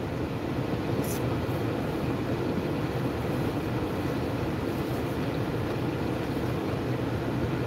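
Steady low rumble inside a car cabin from the running car, its engine and ventilation fan, with a brief crisp crackle about a second in.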